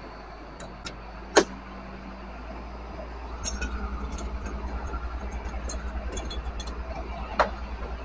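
Sharp metal clicks from a fire engine's side locker and the hose couplings stowed in it: one loud click about a second and a half in, a few small ticks, and another loud click near the end. From about three and a half seconds in, a low, pulsing vehicle engine rumble runs underneath.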